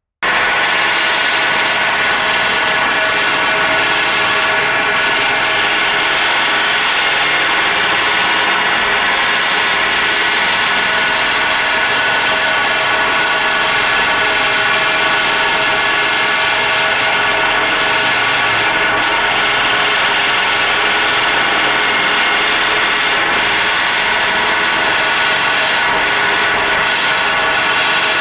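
Pneumatic air hammer driving a tube-beading tool, hammering continuously to roll over the ends of steam locomotive boiler fire tubes against the tube sheet. The steel firebox around it rings loudly at several steady pitches over the rapid rattle of the hammer.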